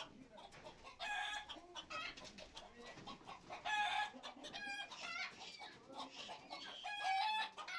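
Chickens clucking in alarm: a string of short, separate calls about once a second, from a flock frightened by the birds being caught.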